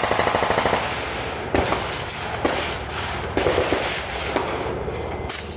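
About a second of rapid full-auto machine-gun fire, roughly a dozen rounds a second, then a string of heavy single shots at uneven spacing from a Barrett M82 .50-caliber semi-automatic rifle fired in quick succession.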